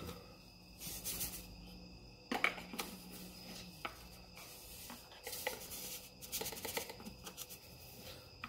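Faint handling sounds of cartridge-reloading gear on a bench: rubbing and scraping with a few light clicks and several short scraping hisses.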